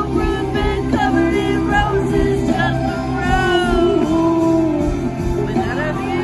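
Live band playing a country song with guitars and drums, a singing voice carrying the melody over it, heard from the arena seats.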